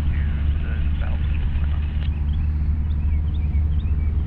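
Light piston-engine airplane running steadily, a low drone from engine and propeller. Short high chirps come in from about halfway through.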